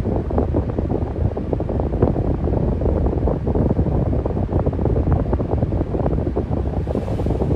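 Electric fan running steadily: an even, low rush of moving air with a fast flutter in it.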